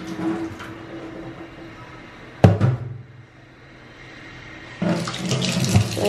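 A single hard knock about two and a half seconds in, then about five seconds in a kitchen tap is turned on and water runs into a stainless steel sink.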